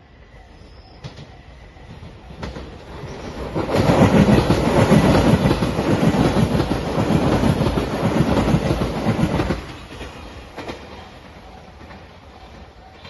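A five-car Shiokaze limited express train, in its white Anpanman livery, passing a level crossing. The wheels clatter over the rails as it approaches from about two seconds in, are loudest for about six seconds as the cars go by, then fall away quickly.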